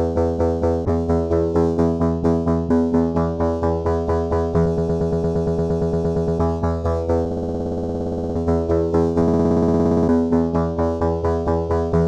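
Electronic loop music played in the Launchpad app: synthesizer and electric-piano-like keyboard notes pulsing about three times a second. Twice around the middle the pulsing gives way to a fast buzzing stutter before the beat returns.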